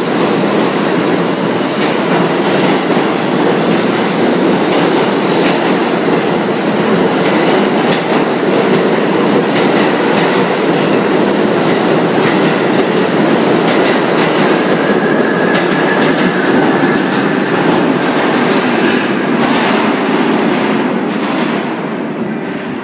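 New York City subway train running past the station platform: a loud, steady rumble of wheels with repeated clicks over the rail joints, fading away near the end as the last car leaves.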